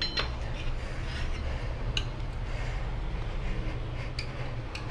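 A few short, sharp metal clinks as tyre levers knock against the wheel rim while a new, stiff tyre is worked over the rim onto the bead, over a steady low rumble.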